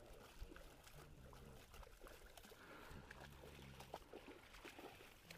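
Near silence, with faint rustling and a few light clicks.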